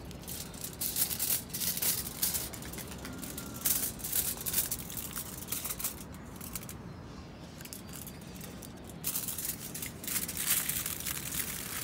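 Aluminium foil crinkling as it is handled and pressed over a bowl, in irregular bursts of crackle with a quieter lull a little past the middle.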